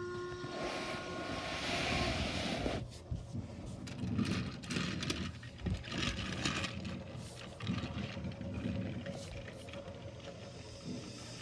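Steam locomotive: a whistle tails off at the start, steam hisses for about two and a half seconds, then come uneven chuffs and clanks as the engine works.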